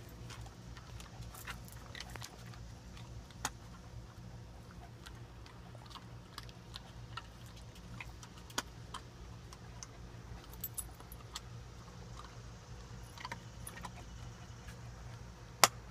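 Dog collar tags jingling and claws clicking on wooden deck boards as several dogs walk about and sniff. There are scattered light clicks, with one sharp click near the end, over a steady low hum.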